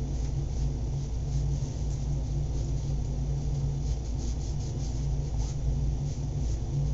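Steady rubbing against a large stretched canvas as paint is worked into it by hand, heard as a continuous scrubbing over a deep rumble.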